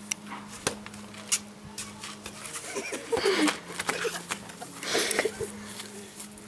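A volleyball being knocked about outdoors: a few sharp thumps of the ball in the first second and a half, then a short falling vocal exclamation about three seconds in, and rustling of grass and bushes around five seconds in as the ball is chased.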